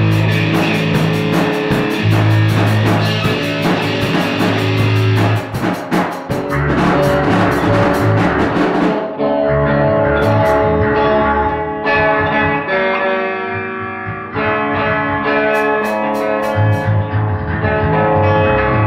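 Live rock jam: an electric guitar played through a Marshall amplifier with a Yamaha drum kit. For the first nine seconds or so the drums and cymbals play busily; then the guitar mostly holds ringing chords, with only a few cymbal crashes, about a second and seven seconds later.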